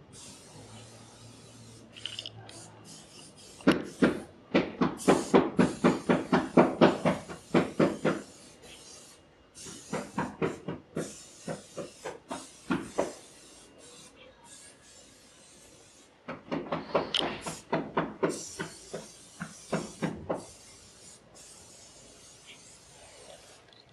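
Loud banging from outside: three runs of rapid, evenly spaced bangs, about four a second, the first about four seconds in, a sparser run in the middle and another near the end.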